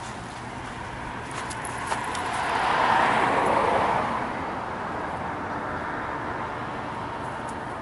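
A car driving past: its road noise swells to a peak about three seconds in and then fades away, over a steady background of traffic.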